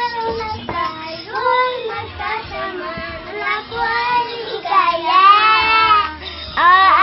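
A child singing a song, the voice sliding between notes, loudest on a long wavering held note about five seconds in.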